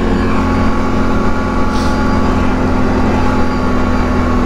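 Can-Am Outlander 1000 ATV's V-twin engine, fitted with an RJWC dual exhaust, running at steady revs while riding.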